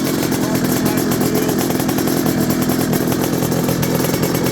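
Bimota 500's 500cc two-stroke V-twin engine running steadily, with the crisp, buzzing two-stroke note.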